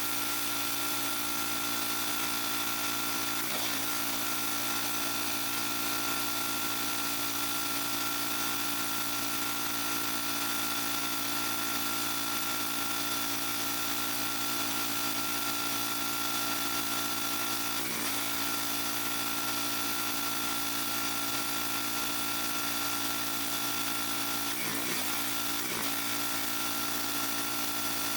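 Gas-engine pressure washer running steadily, its small engine humming over the hiss of the spray. The engine's pitch dips briefly three times as it takes load.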